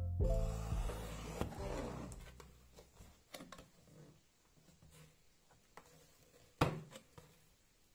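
Background piano music dying away in the first second or two, then quiet handling of cardboard packing sheets in a shipping box: light rustles and taps, with one sharper knock near the end.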